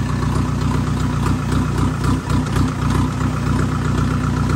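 A vehicle engine running steadily at an even pitch, close by.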